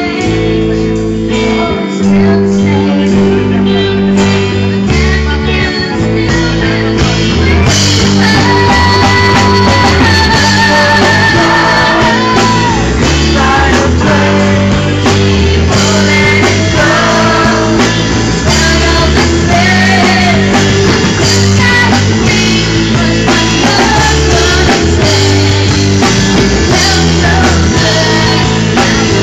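Live band playing a song on drum kit and guitar, with a melody line coming in about eight seconds in.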